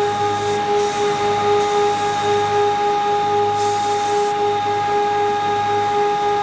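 Beaver 633M four-sided moulder running, with a steady whine of several tones from its motors and cutter heads. Over it, a hand blow gun hisses in two short blasts of compressed air, about a second in and again about four seconds in.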